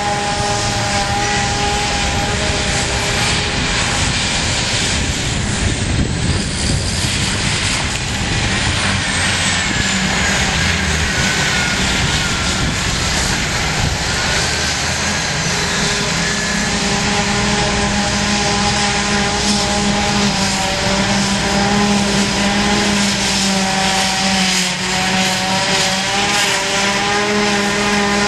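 Silage-harvest machinery, tractor and forage harvester engines, running steadily under load with a constant whine on top. A high tone sweeps down in pitch roughly six to twelve seconds in.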